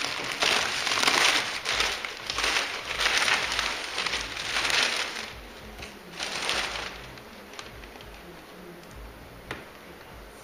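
Protective coverings being pulled off a freshly painted car and crumpled up: a run of crinkling rustles that dies down about seven seconds in.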